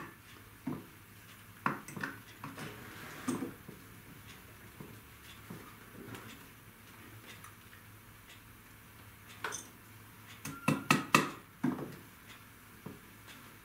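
Tack hammer tapping tacks through heavy jute burlap into a wooden sofa seat frame: a few scattered taps in the first few seconds, then a quick run of about six sharp metallic strikes near the end.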